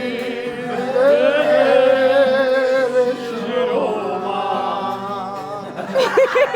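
Music: a voice singing long, wavering held notes over instrumental backing.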